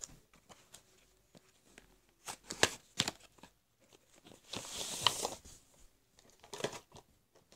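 A cardboard box being opened and handled: a few sharp taps and clicks, a short tear about halfway through, then more knocks near the end.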